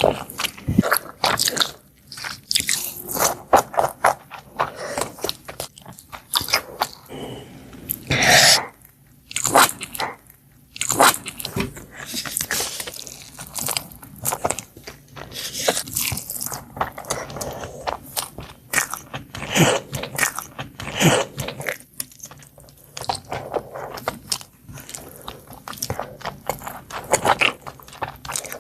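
Close-miked eating: a person biting into and chewing crunchy food, with dense, irregular crunches and a few short pauses.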